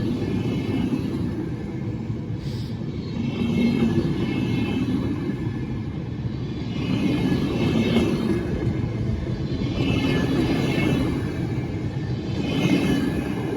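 A train running past on the rails, a steady rumble that swells and eases every few seconds.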